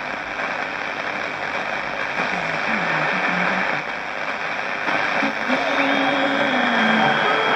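Philips 282 transistor radio on medium wave giving a steady hiss of static, with faint tones stepping up and down in pitch under it. This is interference that the owner puts down to running the set on mains power.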